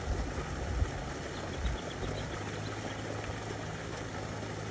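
A steady low mechanical hum over an even wash of noise like running water. Dull low bumps on the microphone come in the first second and again a little later.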